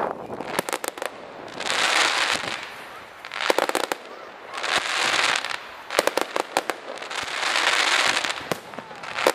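Aerial fireworks going off in a repeating pattern: swells of dense crackling hiss alternate with quick clusters of sharp cracks and pops, about every three seconds.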